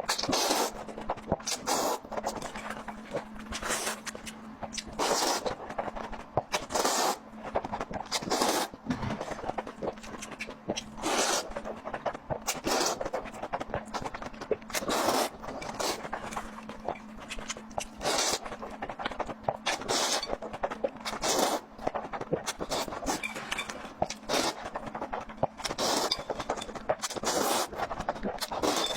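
Close-miked eating sounds: repeated moist chewing and bites of food in quick bursts every half second to a second, over a faint steady low hum.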